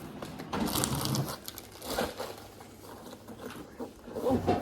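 Fabric carrying case being handled: rustling and crinkling in several short, irregular bursts.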